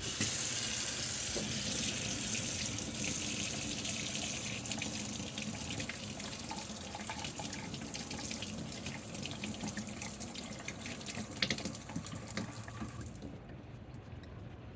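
Water running hard from an RV tap, fed by the RV's water pump, flushing through to bring hot water from the water heater. The rush drops sharply near the end.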